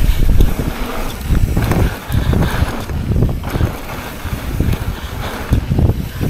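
Wind buffeting an action camera's microphone while moving at speed: a loud, uneven, gusting rumble.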